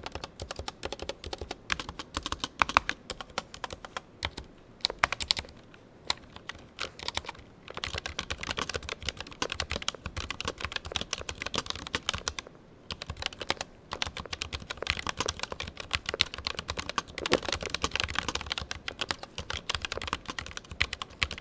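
Typing on an ASUS ROG Claymore II mechanical keyboard with ROG RX Red linear optical switches and ABS keycaps: a fast, continuous clatter of keystrokes, with a brief pause about twelve seconds in. The board sounds stock, apparently without extra lubing or sound dampening.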